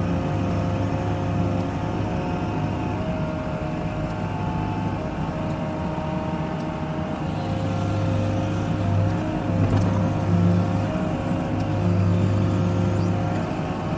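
Hydraulic excavator's diesel engine running under working load, with a steady hydraulic whine. The engine note bears down harder in stretches from about halfway through as the boom lifts and swings a bucket of snow.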